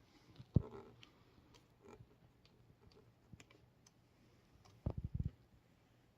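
Small clicks and knocks of a screwdriver and screws being worked on a laptop's screen assembly, with a sharp knock about half a second in and a quick run of knocks near the end.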